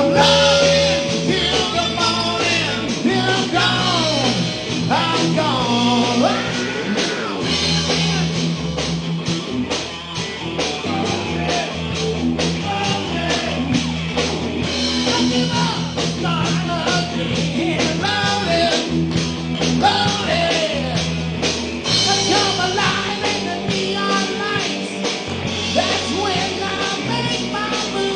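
Live rock band playing a song at full volume: a driving rhythm section and guitar, with a bending lead melody carried over the top.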